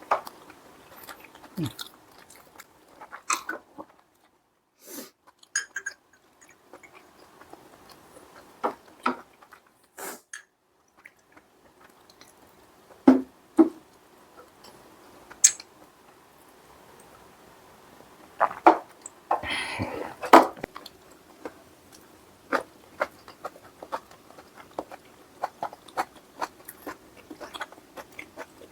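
Close-miked chewing and biting of spicy braised chicken stew, with many short clicks and taps scattered throughout and a denser, noisier stretch of eating about twenty seconds in.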